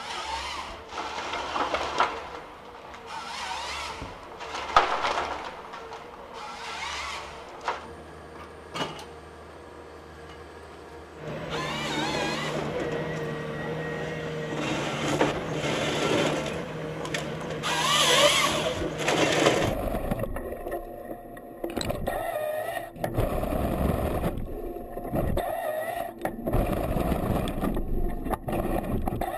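Komatsu 911 wheeled forest harvester at work, with wood cracking and snapping in sharp knocks over the first third. From about a third of the way in, the machine's engine runs steadily, and the harvester head feeds and delimbs a log with a rough crunching of wood and bark.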